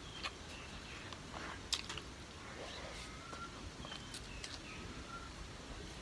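Someone eating close to the microphone: soft chewing and mouth sounds with a few sharp clicks, the clearest about two seconds in.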